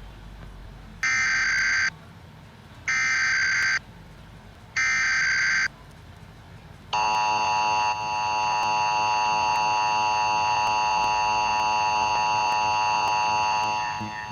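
Emergency Alert System test: three short bursts of the SAME header's data warble, each just under a second long and about two seconds apart, then the steady two-tone EAS attention signal, which starts about seven seconds in and runs on to near the end.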